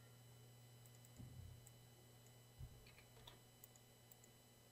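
Near silence: a faint steady room hum, with a few faint clicks of a computer keyboard and mouse around three seconds in as dimension values are typed.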